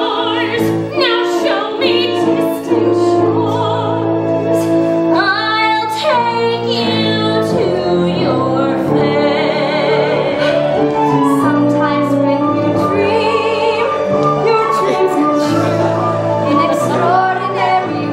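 Operatic-style singing with vibrato on held notes over instrumental accompaniment, from a stage musical number.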